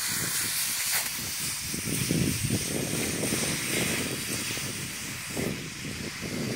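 Snow hissing and sizzling steadily as a 1000-degree ball melts its way down into it, turning the meltwater to steam.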